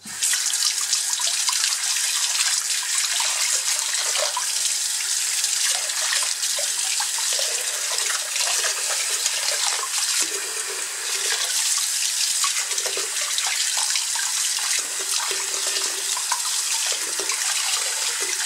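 Water tap running hard into a basin, turned on suddenly, with splashing as gloved hands work a banknote in the stream; the flow stays steady.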